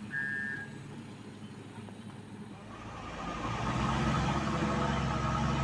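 A reversing alarm beeps once at the start; then, about three seconds in, a heavy diesel engine revs up and keeps working hard under load as a truck is being pulled up a slippery slope.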